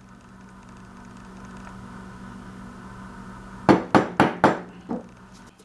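A steady low hum in the shop, then, nearly four seconds in, five quick, sharp knocks of a tool against the wooden workpiece on the bench.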